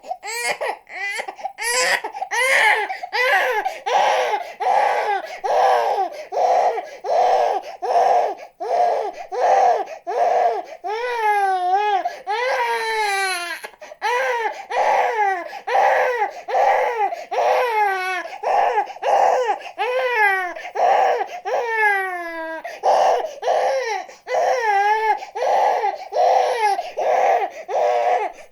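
Baby crying hard: short, rapid cries about two a second, broken several times by longer wails that fall in pitch.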